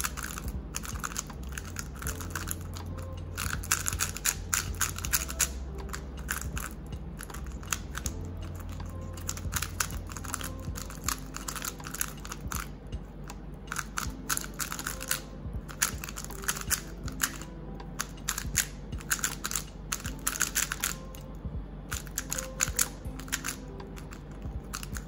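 A MoYu WRM 2020 3x3 speedcube being turned by hand: a constant run of quick, irregular plastic clicks and clacks as the layers snap around. The cube is freshly lubed, with drops of DNM-37 just added to it.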